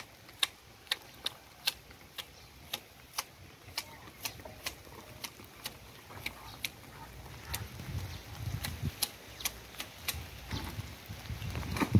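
Manual hedge shears snipping ficus foliage: crisp blade clicks repeating about twice a second. A low rumbling noise rises underneath in the second half.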